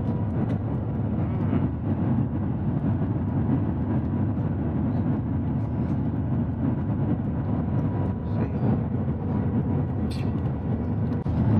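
Shanghai Maglev train running at speed, heard inside the passenger cabin as a steady, even low rumble.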